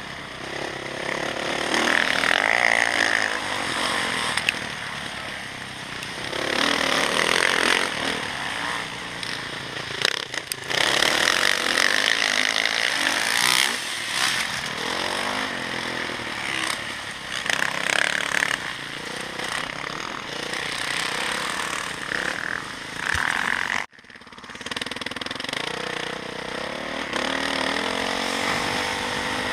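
Dirt bike engine revving hard and backing off again and again as it is ridden around a motocross track, heard close up with wind rushing over the microphone. The sound drops out sharply for a moment about three-quarters of the way through.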